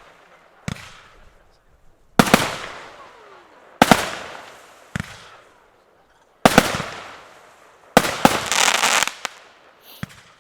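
Zeus Conqueror 30mm fan cake firework going off: seven loud sharp bangs about one to one and a half seconds apart, each fading out in a hiss, with a dense crackle for about a second after the last two, then a couple of small pops near the end.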